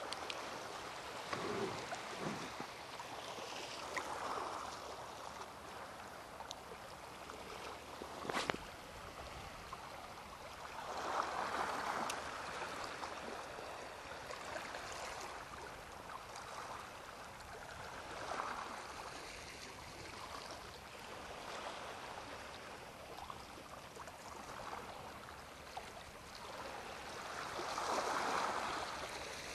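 Small waves of a calm sea washing softly against the shore every several seconds over a steady hiss of water, with one sharp click about eight seconds in.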